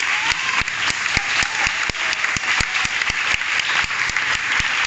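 Audience applauding, with a few sharp claps close by standing out from the rest.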